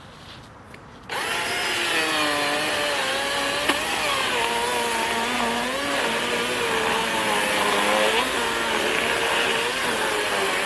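DeWalt cordless electric chainsaw starting suddenly about a second in and cutting wood. Its motor whine wavers up and down in pitch as the chain bites.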